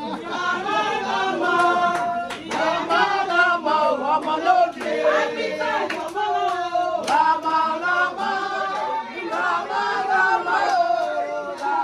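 A group of people singing together in chorus, several voices at once, with scattered handclaps.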